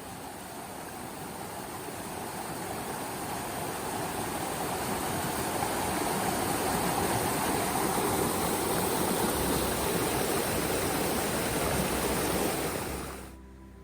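Rushing water of a stream, a steady even wash that grows louder over the first several seconds, then fades out near the end.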